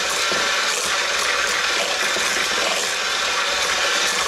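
Electric hand mixer running steadily at speed, its beaters creaming softened butter and sugar in a plastic bowl.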